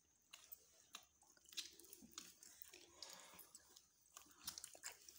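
Faint chewing and mouth sounds of people eating chicken korma and naan with their hands, with scattered soft clicks and smacks.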